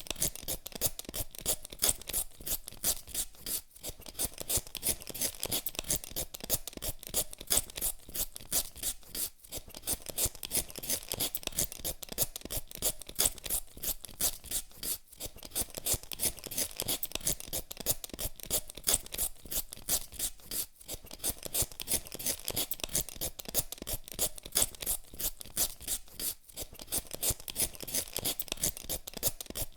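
Hand vegetable peeler scraping the skin off a potato in quick repeated strokes, about two or three a second, with a short break every five or six seconds.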